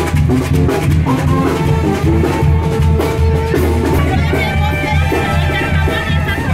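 Loud Latin-style band music with drums and a steady pulsing bass, sustained melody notes over it.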